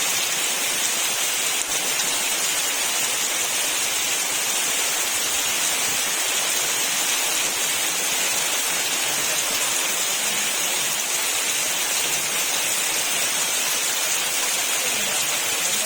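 Very heavy rain pouring down on trees, a steady dense hiss of drops on leaves.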